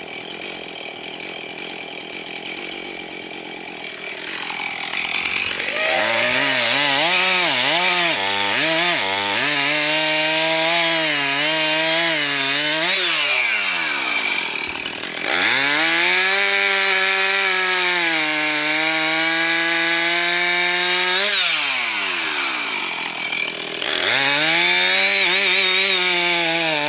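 Husqvarna two-stroke chainsaw with a 16-inch bar cutting branches. It runs quietly at first, then revs up three times to full throttle, its pitch wavering and sagging under load and falling back to idle between cuts.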